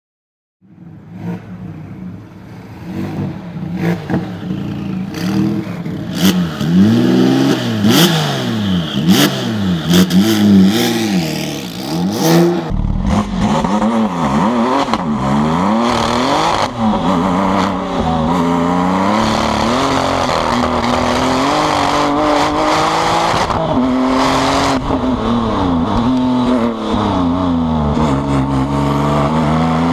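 Twin-turbo Porsche GT2 flat-six revving up and down in bursts, with sharp cracks between revs. About thirteen seconds in it suddenly gets louder as the car launches and accelerates hard, the engine pitch climbing and then dropping at each gear change.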